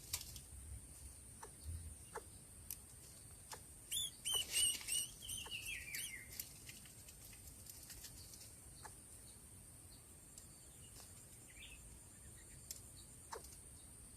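Baby bird chirping a short run of high calls, the last sliding down in pitch, about four to six seconds in; faint scattered clicks come before and after.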